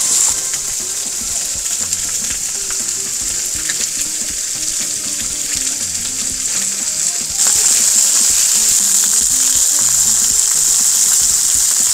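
Pork neck and pork jowl slices with green onions sizzling on a hot round steel griddle plate, a steady frying hiss that gets louder about seven and a half seconds in.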